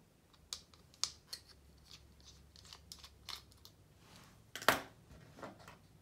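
Small irregular clicks and taps of a screwdriver tip and fingers working at the plastic caddy of a MacBook Pro PCIe SSD, with one sharper click about three-quarters of the way in.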